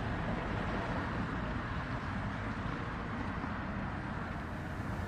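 Steady background rumble with no distinct events, heaviest in the low end.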